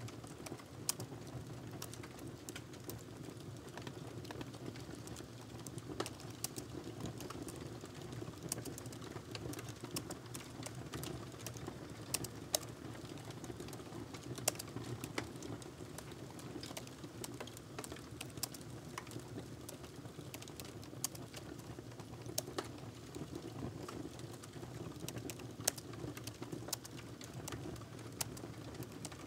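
Typing on a laptop keyboard: quick, irregular keystroke clicks in runs, with a few louder taps, over a steady low background hum.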